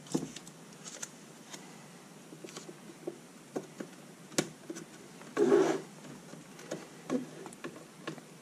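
Hands handling a plastic box and pressing masking tape down onto its edges: scattered light taps and rubs, with one short, louder scrape about five and a half seconds in.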